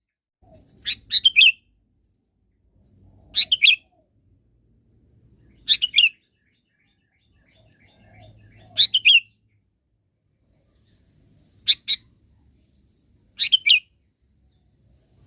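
Sooty-headed bulbul (kutilang) calling: six short, quick bubbly phrases of a few notes each, repeated every two to three seconds with pauses between.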